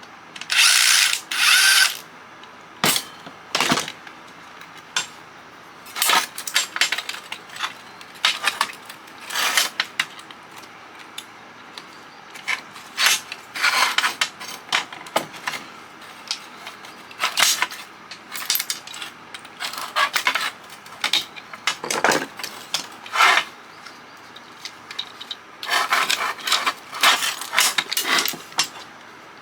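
Hand tools working on a CB radio's metal chassis and parts, giving irregular clicks, scrapes and short rattling bursts as it is taken apart.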